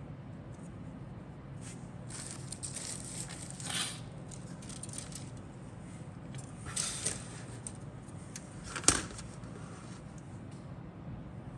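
Plastic model-kit parts and sprue handled by hand: rustling and light scraping, with one sharp plastic click about three quarters of the way through, the loudest sound.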